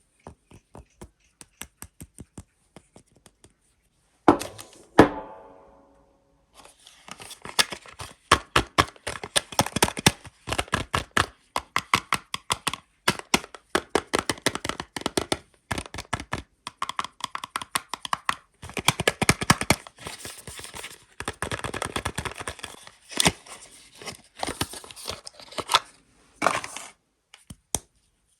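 Soap packaging being unwrapped by hand. A few light taps come first, then a single thunk about four seconds in. After that comes a long stretch of crisp, dense crackling and tearing of the wrapper, which stops shortly before the end.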